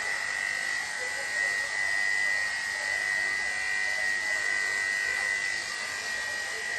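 Electric dog grooming clippers fitted with a #10 blade running with a steady, even buzz as they clip the hair under a small dog's hindquarters.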